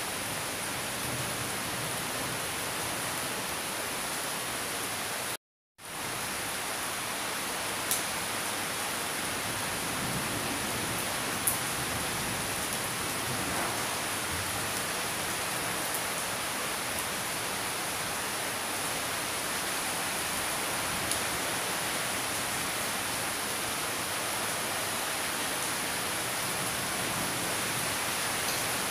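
Steady rain, an even hiss with a few sharper single drop ticks. It breaks off to silence for a split second about five seconds in, then fades back in.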